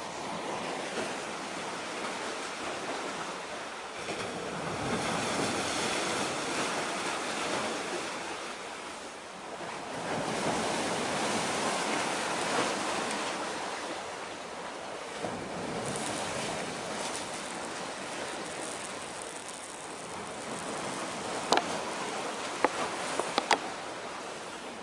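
Sea waves washing in and drawing back, swelling and falling every few seconds. Near the end come four sharp clicks, louder than the waves.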